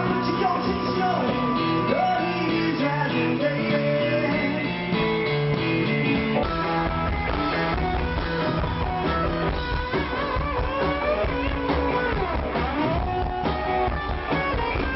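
Rock music with guitar and singing. The bass and drums come in heavier about six and a half seconds in.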